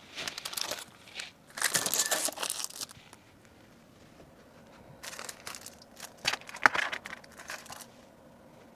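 Plastic packaging crinkling and rustling as items are handled and packed, in three bursts with a few sharp clicks among them.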